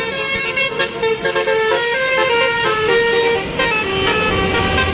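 Basuri telolet horn on a bus, a multi-tone horn playing a quick tune of shifting notes. A low drone comes in near the end.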